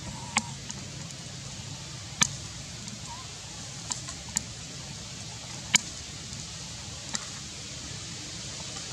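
Steady outdoor hiss with about six short, sharp clicks scattered through it, the loudest nearly six seconds in.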